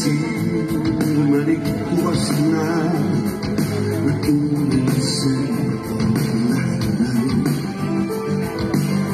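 Live rock band playing an instrumental passage between verses: electric guitar to the fore over drums, bass and keyboards, heard through the PA from within the audience.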